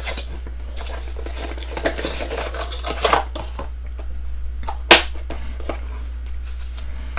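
Cardboard box flap rustling as it is opened, then a clear plastic hinged storage case handled, its lid snapping open with a sharp click about five seconds in, over a steady low hum.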